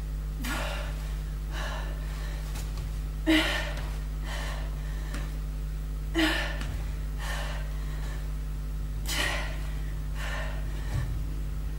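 A woman breathing hard from exercise exertion, with short exhaled puffs about every second and a half. Three louder ones come about three seconds apart, over a steady low hum.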